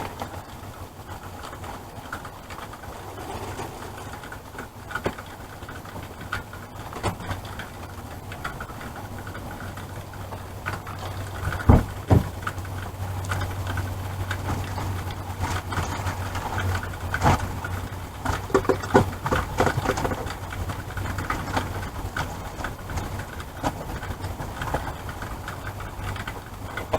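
A vehicle engine idling with a steady low hum, under scattered clicks and knocks of items being handled and set down, the sharpest knock about twelve seconds in.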